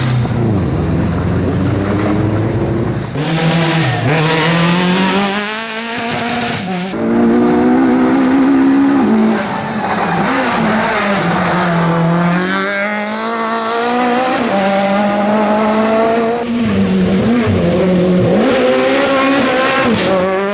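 Classic rally car engines revving hard, their pitch climbing and dropping repeatedly through gear changes and lifts as the cars slide sideways, with tyre squeal.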